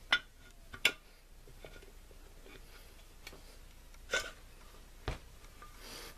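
Metal clinks and knocks of a steel shaft and parts against a T-90 transmission case during a dry fit of the cluster gear: a few separate sharp strikes, the two loudest within the first second, then a dull thump near the end.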